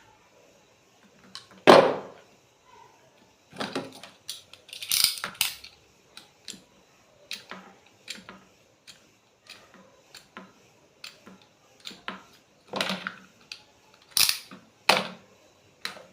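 Irregular clicks, taps and short rustles of small electronic parts and wires being handled and fitted by hand on a tabletop, with a sharper knock about two seconds in.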